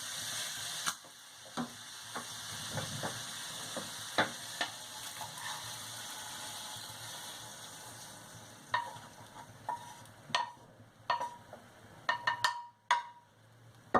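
Squid pieces sizzling in oil in a frying pan, stirred and scraped with a utensil. The sizzle weakens after the first second. From about nine seconds in there are several sharp taps of the utensil on the pan and dishes, some with a brief ring.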